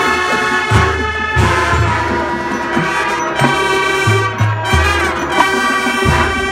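High school marching band playing a jazz arrangement: trumpets and trombones hold chords over a low-brass bass line that steps from note to note.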